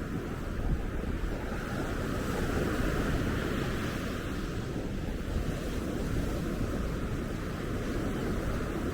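Ocean surf washing onto a sandy beach in a continuous rush, swelling a little a couple of seconds in, with wind buffeting the microphone.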